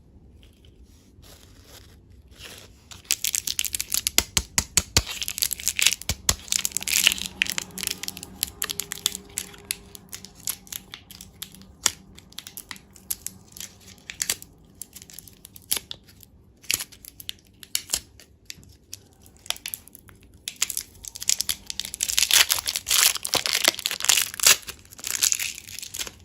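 Candy wrappers crinkling and tearing as they are opened by hand. The crackling comes in two busy stretches, one starting about three seconds in and one near the end, with scattered clicks and rustles between them.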